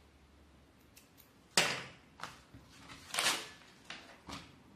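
Handling noise on a tabletop: a handful of short knocks and rustles as thread snips are set down and a paper template sheet is slid aside, the loudest about a second and a half in.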